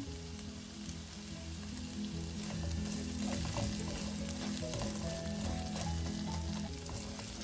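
Chopped vegetables sizzling as they fry in a pan, with a few stirring scrapes. Soft background music with held notes plays underneath.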